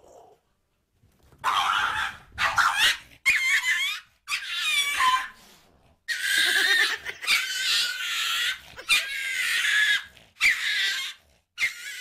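A small dog squealing and whining in a string of high, wavering cries, each up to about a second and a half long.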